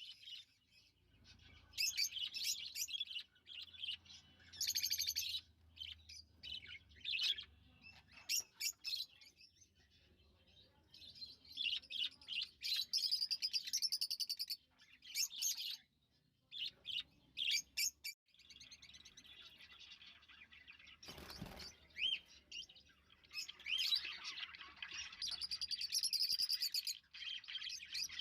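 A pair of lovebirds chirping and twittering in runs of quick, high chirps with short pauses between.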